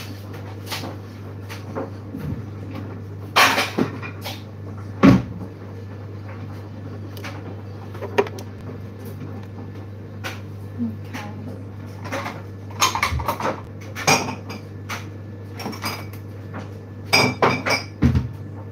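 Kitchen cupboard doors opening and shutting while dishes and cutlery are handled: a scattered series of knocks, bangs and clinks, the loudest a few seconds in, with more clattering near the end. A steady low hum runs underneath.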